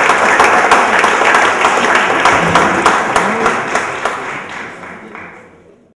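Audience applauding, many hands clapping together; the applause dies away over the last two seconds.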